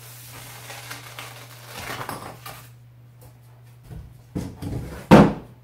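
A stiff corrugated cardboard panel pulled free of its Velcro fastenings with a rasping rip, followed by a few handling knocks of cardboard and pipes, the loudest a thump about five seconds in.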